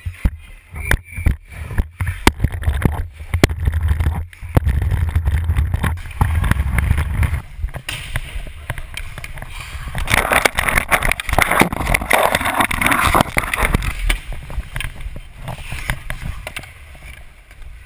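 Ice hockey skating heard from a helmet-mounted camera. Sharp clacks and knocks come in the first few seconds over a low wind rumble on the microphone. About ten seconds in, skate blades hiss and scrape on the ice for a few seconds.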